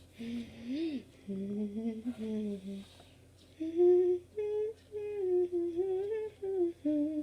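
A girl humming a wandering tune in a few short phrases, with a brief pause about three seconds in.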